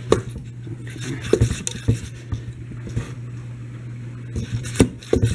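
Hand pump on a plastic pressurised fluid transfer tank being worked to build air pressure: a few irregular plastic clunks and clicks from the pump strokes. A steady low hum runs underneath.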